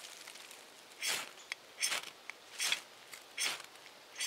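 A knife blade scraping a piece of dry, spongy punk wood into fine tinder. It makes about four short scraping strokes a little under a second apart.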